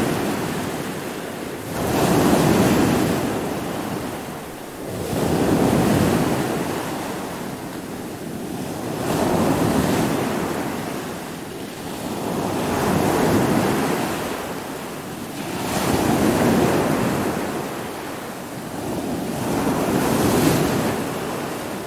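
Stormy sea: heavy waves surging and breaking about every three to four seconds, six swells in all, over a steady wind.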